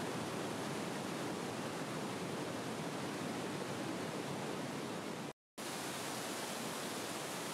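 Mountain torrent and waterfalls in a narrow gorge: a steady, even rushing of white water. About five seconds in it drops out to silence for a split second and resumes unchanged.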